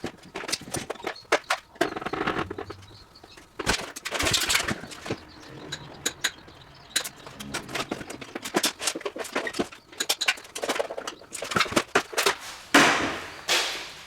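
A run of sharp knocks and clicks with several scraping, rasping strokes, the loudest near the end: hand work taking down an electrical distribution board.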